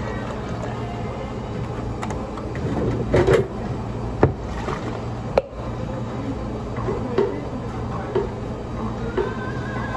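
Work clatter behind a café counter: scattered knocks and clicks of cupboard doors, cups and utensils being handled, the sharpest about four and five and a half seconds in, over a steady low hum of equipment.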